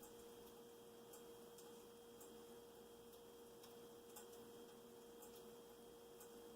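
Near silence: room tone with a faint steady hum and a few faint, scattered ticks.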